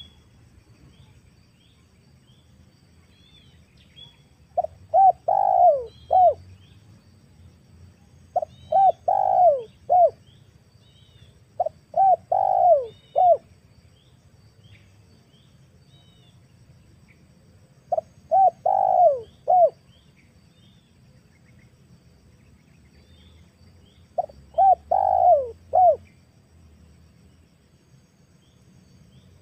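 Female spotted dove cooing: five phrases a few seconds apart, each a couple of short coos, a longer coo that bends up and down, and a short closing coo. Faint high chirps of small birds can be heard between the phrases.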